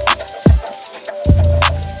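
Background music with a steady beat: kick drum, bass and sharp percussion hits.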